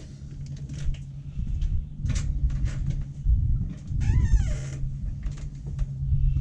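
A cat meows once about four seconds in, over small clicks and rustles of handling and a steady low hum.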